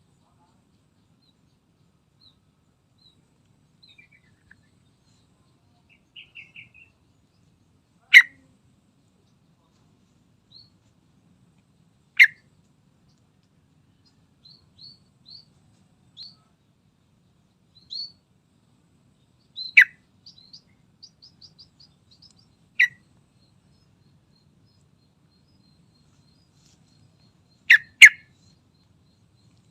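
Yellow-vented bulbul (trucukan) calling: five loud, sharp single notes spaced several seconds apart, the last one doubled, with soft high chirps and short rapid trills in between.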